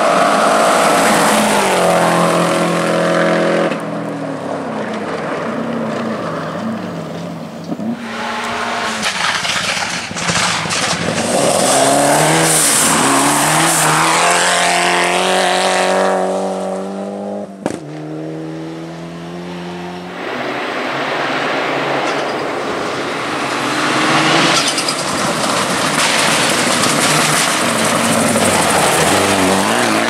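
Gravel rally cars passing at speed, a Subaru Impreza and a Mitsubishi Lancer Evolution among them: the engines rev hard through the gears, with the pitch climbing several times, under a continuous spray of gravel. A single sharp bang comes about two-thirds through.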